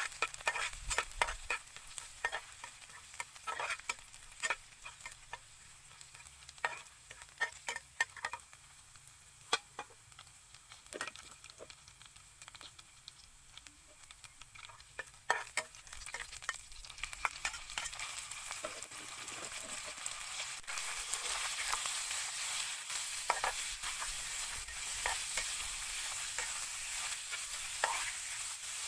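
Minced garlic sizzling in oil in a nonstick pan, stirred with a metal spatula that scrapes and taps the pan. About two-thirds of the way in, the sizzle grows louder and steadier as raw beef goes into the hot oil.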